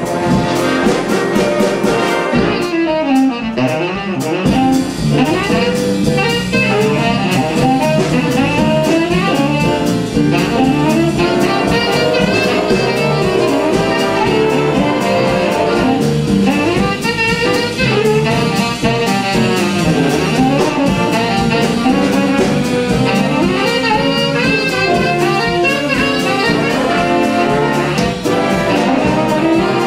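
Student jazz big band playing live: saxophones, trumpets and trombones over a drum kit.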